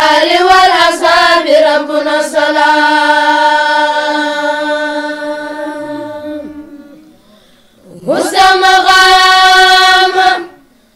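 A single voice chanting Quran recitation in Arabic, in long melodic phrases: a wavering opening, then one note held for several seconds that slowly fades, and after a short pause a second held phrase near the end.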